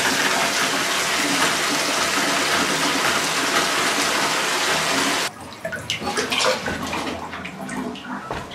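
Bathtub spout running cold water full into the tub, a steady rush, as the newly repaired water line is flushed of debris. The rush stops abruptly about five seconds in, leaving light clicks and knocks.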